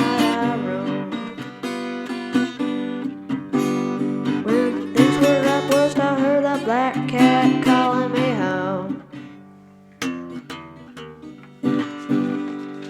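Acoustic guitar playing a blues passage with bent notes, winding down to a few struck chords near the end that ring out and fade.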